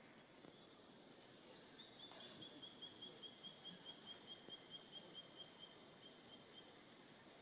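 A bird calling faintly in a quick series of short, high, evenly repeated notes, about four or five a second, starting about two seconds in and stopping near the end.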